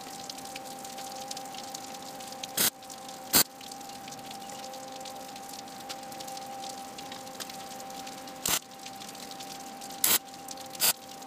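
Wire-feed welder tack-welding a steel bar to a lead-screw nut: five short bursts of arc crackle and spatter, two early on and three in the last few seconds, over a steady hum and hiss.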